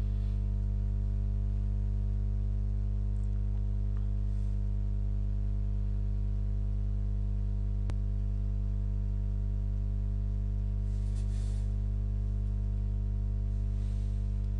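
Sustained low synthesizer drone, a steady chord of deep held tones that does not change, with one faint click about eight seconds in.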